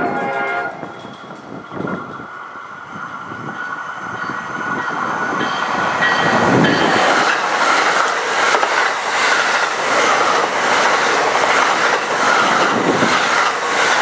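A loud mechanical rumble from a passing vehicle that grows louder over the first few seconds, with a rapid rhythmic clatter from about six seconds in. A pitched tone with several overtones sounds briefly at the very start.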